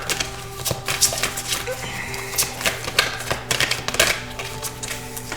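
Tarot cards being handled, light irregular clicks and taps, several a second, over background music with steady held tones.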